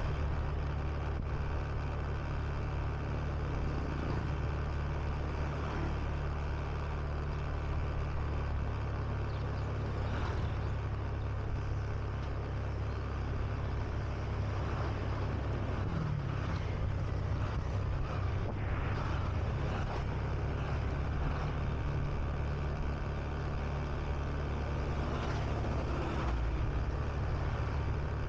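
Steady ride noise from a Honda Beat 125 cc scooter on the move: its engine running at a constant pace under a low rumble of wind and road noise. Other motorbikes pass now and then.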